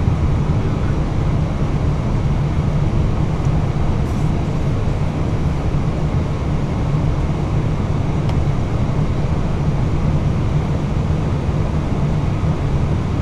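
Airbus A320 rolling out and turning off the runway at taxi speed, heard from inside the cockpit as a steady low noise that does not change.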